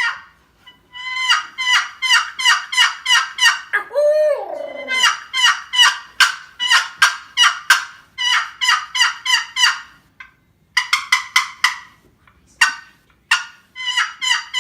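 A 12-inch long wooden turkey box call stroked lightly with its paddle, giving runs of quick, high, raspy turkey yelps at about three strokes a second, with brief pauses near ten and twelve seconds in. About four seconds in, a lower sliding note falls away.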